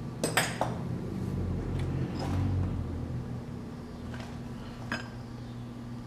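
Metal lathe running with a steady motor hum while a turning cut is taken on a steel crank nose. The cutting noise swells for a couple of seconds. Several light metallic clinks and ticks come through, two of them close together about half a second in.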